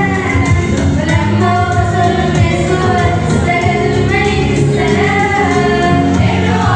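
Arabic Christian hymn sung over musical accompaniment, the voice holding long sung notes against a steady backing.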